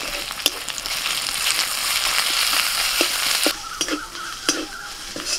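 Onions and freshly added ginger-garlic paste sizzling in hot oil in a kadai (wok), stirred with a metal spatula that clicks and scrapes against the pan. The sizzle swells through the first three and a half seconds, then drops back abruptly, with spatula clicks throughout.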